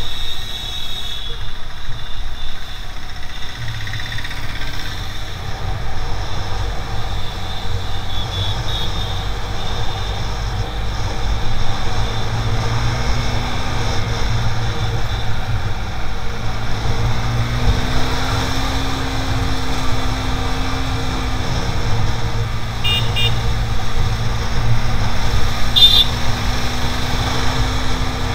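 Sport motorcycle riding on the road, heard through a bike-mounted action camera: a heavy wind and road rumble on the microphone with the engine note wavering up and down as the throttle changes. Two short high-pitched toots sound near the end.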